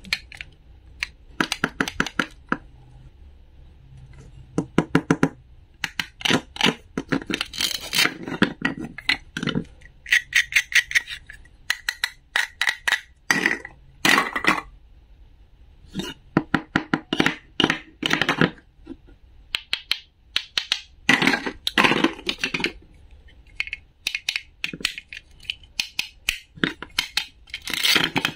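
Toy play food being cut and handled: a wooden toy knife tapping and scraping on a wooden board, and Velcro-joined plastic fruit and vegetable pieces being pulled apart and pressed together. The sound comes in repeated short runs of rapid crackly clicks with pauses between.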